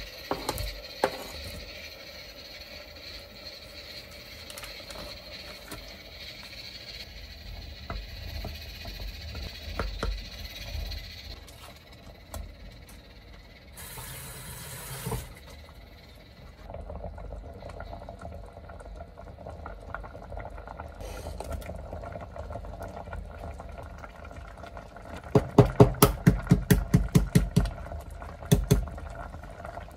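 Stew simmering in a stainless pot. Near the end, an egg is tapped about a dozen times in quick succession to crack it, then once more.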